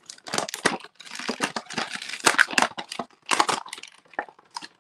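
Clear plastic blister pack crinkling and crackling as it is prised and torn away from its cardboard backing by hand: a quick, irregular run of sharp crackles and snaps.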